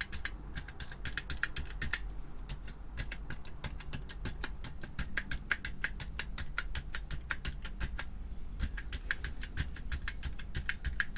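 Keys on the freshly reassembled keyboard of a Tektronix Scientist 909 calculator being pressed one after another, a quick run of plastic clicks with brief pauses about two seconds in and about eight seconds in, as each key is checked to see that it works.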